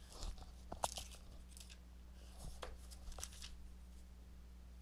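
Clear plastic protective film and a cardboard box tray being handled as a phone is lifted out: light crinkling with a few sharp clicks scattered through, the loudest about a second in.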